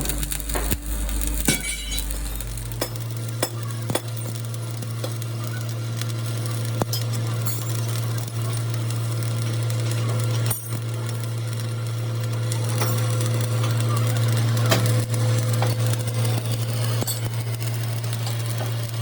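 Workshop machine running with a steady low hum that shifts to a slightly higher pitch about three seconds in, with scattered metallic clinks and a sizzling crackle over it, typical of metalworking on the excavator pin.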